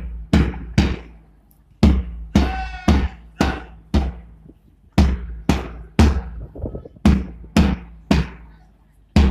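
A drum beating a steady marching beat, about two strokes a second, with a short break about a second in. A brief high-pitched call sounds over it about two and a half seconds in.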